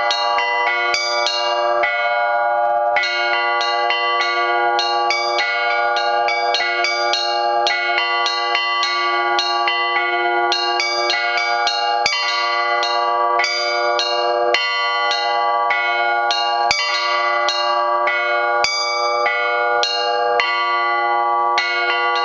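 Russian Orthodox peal (zvon) on four hand-rung bells cast by the Olovyanishnikov foundry. The small bells are struck in a quick, continuous rhythm over the lingering hum of the deeper bells.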